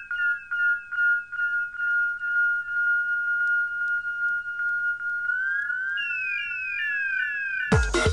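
Electronic dance music: a high synthesizer tone with short repeating falling pitch glides, about two or three a second, that hold to a plain steady tone in the middle and return as rising then falling sweeps. Just before the end a full techno beat with a deep kick drum comes in.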